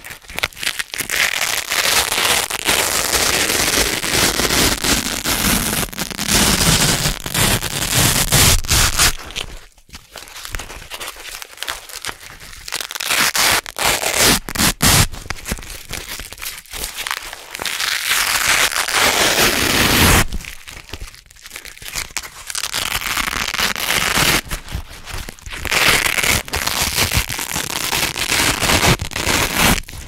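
Blue hook-and-loop (Velcro) strips being peeled apart slowly, a long crackling rip of the hooks pulling free of the loops, in several drawn-out pulls with short pauses between them.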